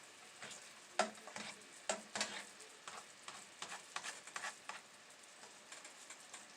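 A utensil stirring and tapping in a pan of simmering banana syrup, with a faint sizzle. There are irregular clicks and scrapes, the sharpest about a second and two seconds in.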